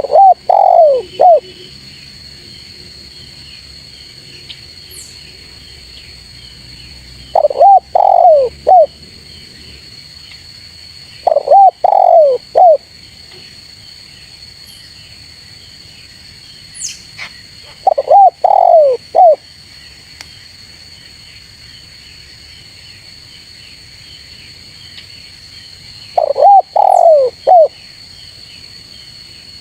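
Spotted dove (tekukur) cooing: five phrases of three or four notes each, a few seconds apart. This is the full call used to lure in rival doves. A steady high insect chirring runs underneath.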